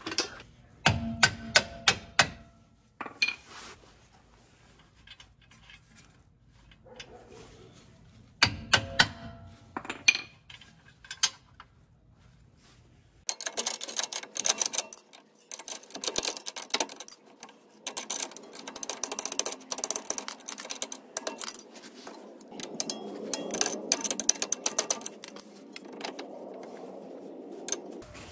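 Sharp metallic clanks and clinks of hand tools on steel in two short clusters. From about halfway, rapid clicking of a ratchet wrench as the rear shock's lower 18 mm bolt nut is backed off.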